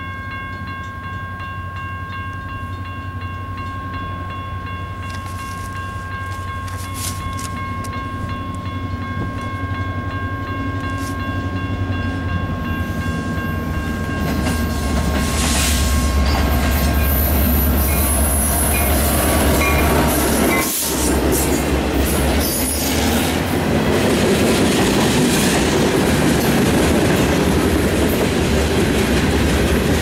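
Railroad crossing bell ringing steadily while a diesel freight train approaches. From about 14 seconds in, the locomotive's low engine rumble and the clatter of wheels on rail swell and stay loud as the train passes the crossing.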